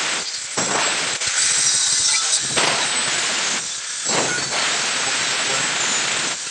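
Angle grinder with an abrasive cut-off disc, mounted as a chop saw, cutting through 1x1 square steel tube: a loud grinding screech in several passes, easing off briefly about half a second in and again around four seconds in.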